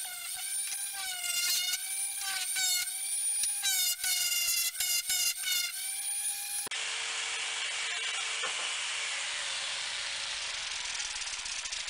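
Electric power tools working wood: first a motor whine that wavers in pitch and stops and restarts several times, then, after a cut about two-thirds of the way in, a steady rough noise of a tool working the wood.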